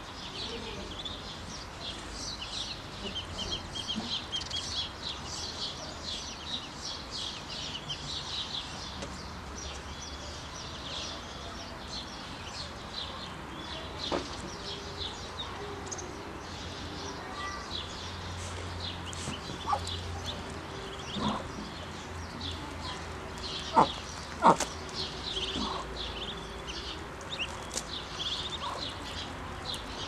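A brood of ducklings peeping constantly in a high, busy chorus while they feed. A few louder, lower clucks break in during the second half, the loudest two close together about three-quarters of the way through.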